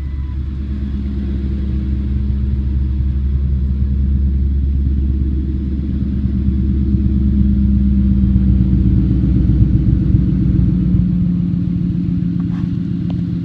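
2002 Ford F-150 SVT Lightning's supercharged 5.4-litre V8 idling steadily through its side-exit exhaust, with a deep, even rumble that grows louder about halfway through as the exhaust tips come close.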